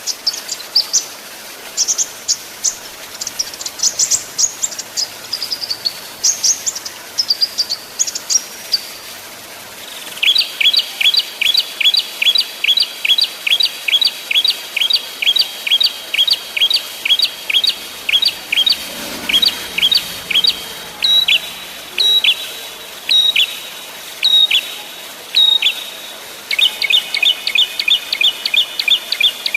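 Small songbirds calling. High, quick chirps come first. About ten seconds in they give way to a fast, even run of sharp, falling notes, about three a second, which packs tighter near the end.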